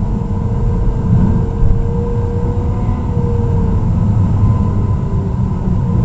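Car driving, heard from inside the cabin: a steady low rumble of tyres and engine.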